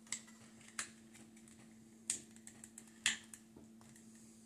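Small hard plastic toy-drone parts clicking and tapping as they are handled and pressed together: a few sharp clicks, the loudest about three seconds in, with lighter ticks between.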